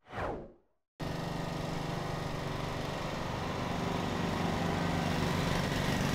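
A short whoosh falling in pitch, then a cut to a steady engine running: the track-prep rig spraying VHT traction compound onto the drag strip.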